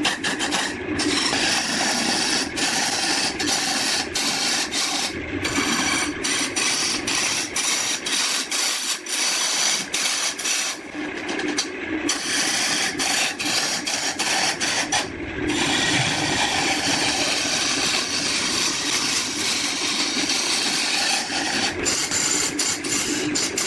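A cutting tool scraping against wood spinning on a lathe, a continuous rasping noise with rapid regular ticking near the start and again near the end.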